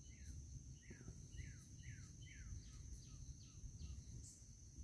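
A bird singing faintly: a series of about nine short, falling whistled notes, roughly two a second, the last few pitched higher and shorter. Underneath is a steady high drone of insects.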